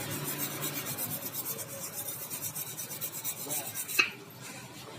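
Rhythmic rasping or scraping of a hand tool working metal, a quick even run of strokes, which stops with one sharp click about four seconds in.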